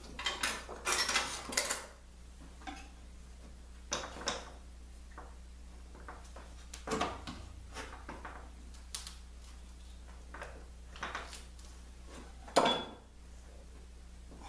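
Irregular clinks and knocks of objects being handled, a quick run of them in the first two seconds, then scattered ones, with a louder knock about twelve and a half seconds in.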